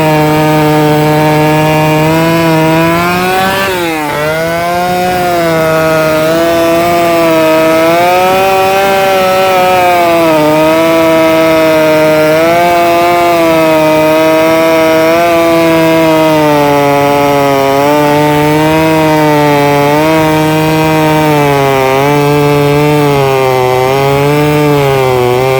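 Late-1960s Homelite Super XL Automatic chainsaw's single-cylinder two-stroke engine running hard and continuously. Its pitch drops sharply about four seconds in and climbs back, then dips and recovers several more times near the end.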